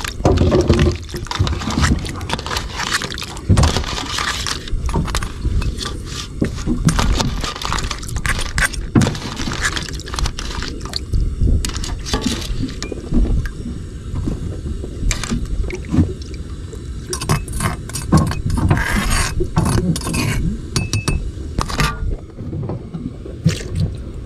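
Cookware clattering and clinking: many short metal and glassy knocks scattered throughout, over a steady low rumble.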